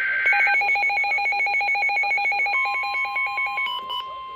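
Emergency Alert System lead-in on NOAA Weather Radio. The tail of a SAME digital header burst is followed by a rapid warbling alert beep, several tones pulsing about ten times a second. About two and a half seconds in, the steady single-pitch 1050 Hz weather radio warning alarm tone begins, signalling that a warning is about to be read.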